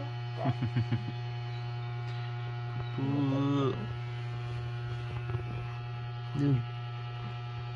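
A steady low electrical hum, with brief voice sounds: short ones about half a second in, a longer held one about three seconds in, and another near the end.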